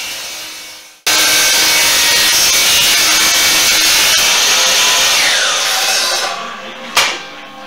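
DeWalt sliding miter saw (chop saw) running at full speed as its blade cuts through firewood. The sound breaks off abruptly about a second in and comes straight back, the saw winds down after about six seconds, and a single sharp knock comes about a second later.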